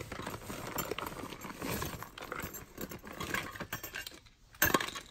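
Hands rummaging through a box of clothes and plastic bags: rustling and many small clicks as items are shifted and picked up, with one louder rattle-like clatter shortly before the end.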